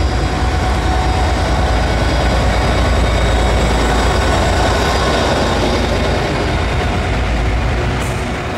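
West Coast Railways Class 57 diesel locomotive passing close by, its engine running with a heavy, steady rumble that is loudest about three seconds in. Near the end the locomotive has gone by and Pullman coaches roll past on the rails.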